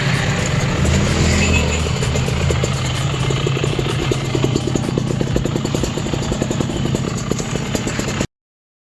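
Kawasaki KRR 150's single-cylinder two-stroke engine running with a fast, crackling firing beat. It revs briefly about a second in, then runs steadily until the sound cuts off abruptly near the end.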